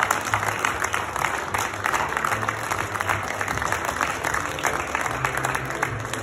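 Audience applauding, with music playing underneath; the clapping thins out toward the end.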